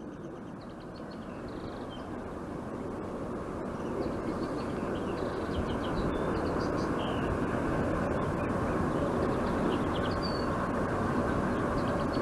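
A steady low engine rumble swells over the first six seconds or so and then holds, with small birds chirping now and then above it.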